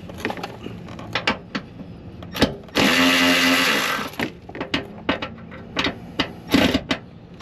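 A cordless power tool spins a 13 mm socket on a bolt under the car in one loud burst of about a second, its motor pitch rising as it starts and dropping as it stops. Light metallic clicks and knocks of tools against the socket and bolt come before and after.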